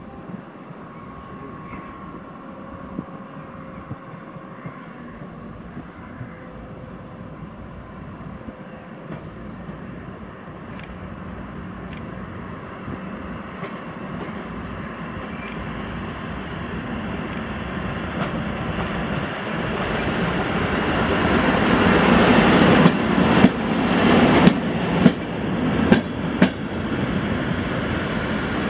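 Passenger train hauled by an electric locomotive approaching and running past along the platform: a low rumble that grows steadily louder over the second half, with sharp clicks of wheels over rail joints in the last few seconds.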